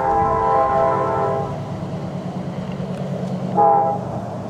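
Approaching diesel locomotive sounding its multi-note air horn: a long blast that cuts off about a second and a half in, then a short toot near the end, over the steady low rumble of its engine.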